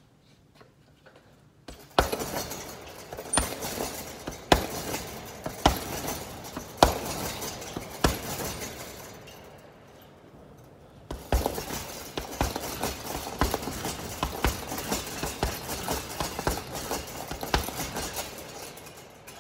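Gloved punches landing on a chain-hung heavy punching bag, with the chains clinking. After a quiet start come hard punches about once a second, then a short pause, then a quicker, denser run of punches.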